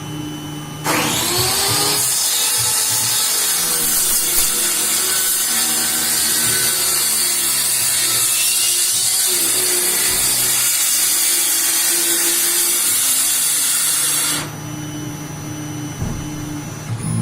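CNC router spindle spinning up about a second in with a rising whine, then running with a loud, steady high hiss as it cuts MDF sheet, cutting off suddenly near the end.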